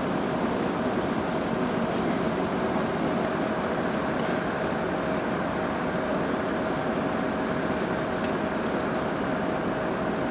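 Steady drone of an idling engine, with a constant mid-pitched whine over a low hum that does not change.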